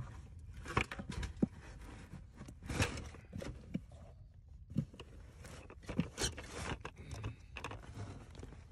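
Irregular scraping and rustling in loose fiberglass insulation with several short knocks, as a dead possum is worked into a plastic bucket with a rake.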